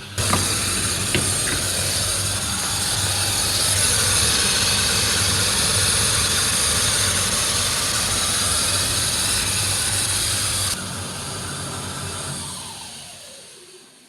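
Samsung dryer running with a loud, hissing squeal, the noise of its worn drive motor. It steps down about eleven seconds in, then winds down and fades out near the end.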